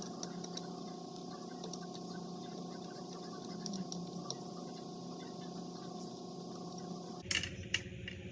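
A steady machine hum with faint ticking. About seven seconds in the hum changes, and two sharp clicks follow in quick succession.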